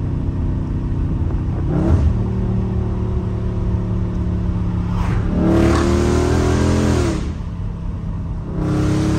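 Catless Dodge Charger Scat Pack's 6.4-litre HEMI V8 exhaust heard from the cabin while driving. A quick rev blip comes about two seconds in, then two spells of heavier throttle with a louder exhaust note: one from about five to seven seconds, and another starting near the end.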